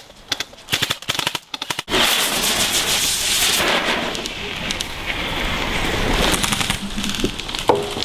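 Airsoft rifle firing in quick bursts of sharp cracking shots. About two seconds in, this gives way suddenly to a loud steady hiss that slowly eases off.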